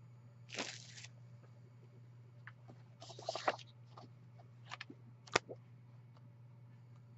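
Plastic packaging crinkling and tearing in short bursts as a wrapped pad of scrapbook paper is opened and handled, followed by a few sharp clicks or taps, over a steady low hum.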